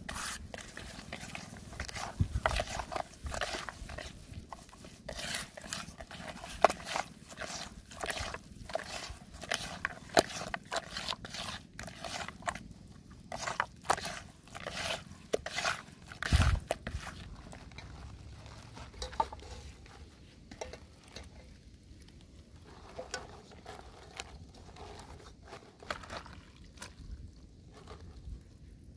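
Hands kneading and squeezing minced fish paste in a plastic bowl: a quick, irregular run of short squishing sounds, with a dull thump about sixteen seconds in, thinning out over the last ten seconds.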